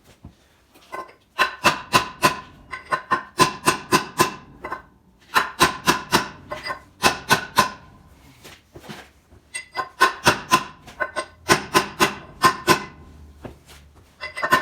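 Fast runs of metal-on-metal strikes, about five or six a second with short pauses between runs, each with a bright ringing tone: a hammer driving the old ring gear off a tractor flywheel.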